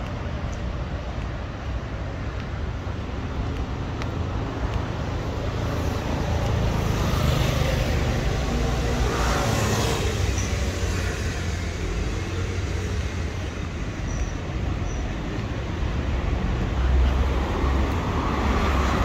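Road traffic going by: a steady low rumble of cars, with one vehicle swelling up and passing about nine to ten seconds in and another coming up near the end.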